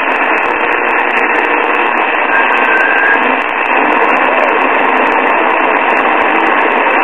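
Early-1940s Emerson five-tube AM radio's speaker hissing with steady static, a very weak station buried in the noise. A faint whistle rises briefly through the static about two and a half seconds in.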